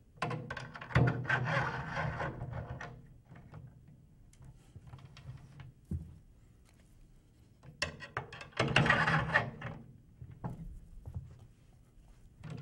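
Metal floor tom legs being slid into the drum's leg brackets: two stretches of scraping, metal rubbing on metal, the first starting just after the beginning and the second near eight seconds, with a few light knocks in between.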